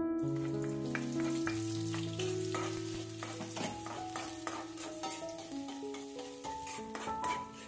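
Sliced shallots sizzling in hot oil in an aluminium wok, stirred and scraped with a metal spatula in repeated short strokes. Background music plays throughout.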